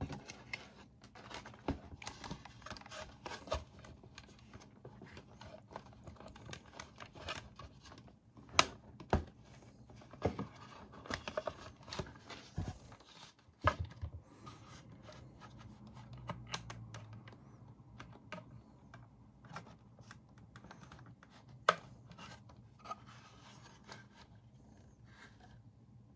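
Plastic housing and parts of a Bodum coffee grinder being handled during reassembly: irregular clicks, taps and rubbing, with a few sharper knocks scattered through.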